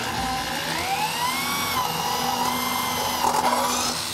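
Corded electric drill boring a 3/8-inch hole through the sheet-steel cross brace with a step drill bit (uni bit). The pitch of the cutting squeal rises about a second in, wavers as the bit steps through the metal, and stops near the end as the bit pulls out.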